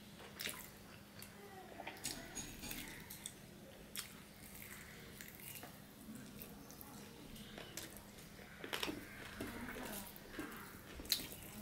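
Close-miked eating sounds: chewing and mouth smacks while polao rice with fish and chicken curry is eaten by hand, fingers working the rice on a steel plate. Scattered short clicks, busiest about nine seconds in, with one sharper click near the end.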